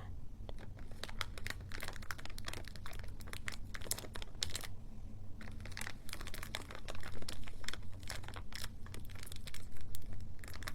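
Dense, rapid crinkling crackles, close up, with a short pause about five seconds in.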